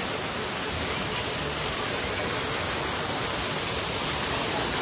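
Man-made waterfall pouring down a rock face into a pool: a steady, even rush of falling water.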